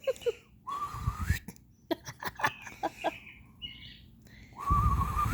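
Two puffs of breath blown on a cockatiel's crest, each carrying a wavering whistle-like tone. Between them the cockatiel makes a quick run of short chirps and clicks.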